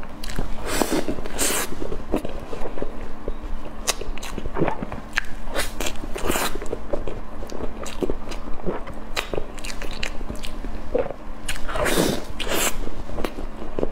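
Close-miked mouth sounds of a person biting into and chewing a chunk of meat: many short clicks and smacks, with louder bites about a second in, near six seconds and again near twelve seconds.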